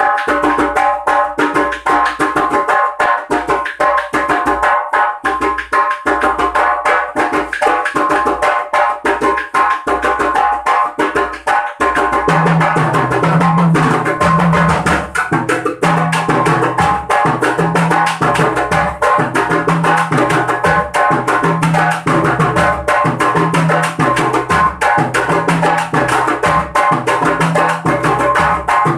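Hand-percussion ensemble playing a rhythm pattern in 3/4 time: two djembes struck by hand and a set of four toms played with sticks, in dense quick strokes. About twelve seconds in, a deeper repeating drum pattern joins.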